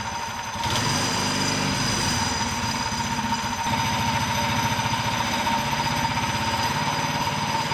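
Predator Ghost 212cc single-cylinder four-stroke racing engine running at low speed on a dyno, a fast steady firing beat. The engine is brand new, on its first run with break-in oil.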